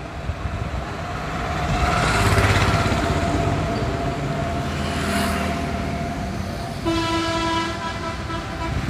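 Road traffic with motorbikes going by, swelling about two seconds in, and a vehicle horn honking with a steady held note about seven seconds in.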